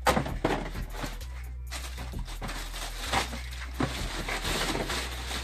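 Cardboard shoebox being handled and opened, with tissue paper rustling as a sneaker is unwrapped inside it; a few sharp knocks of the box, the loudest right at the start.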